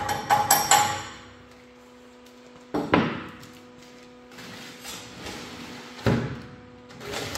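Hammer tapping: a quick run of sharp taps, about four or five a second, stops about a second in, followed by two single knocks about three seconds apart, over a faint steady hum.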